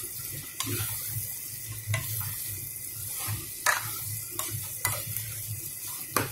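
Onions and tomatoes sizzling in hot oil in a metal kadhai as they are stirred and sautéed with a metal spoon, the spoon scraping and clinking against the pan at irregular moments.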